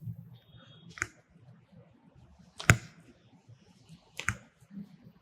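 Three sharp cracks about a second and a half apart, the middle one loudest.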